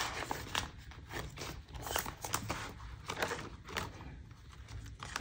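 Paper dollar bills and laminated binder pages rustling and crinkling as cash is handled and tucked into a ring-binder envelope, a run of short crisp rustles and light taps.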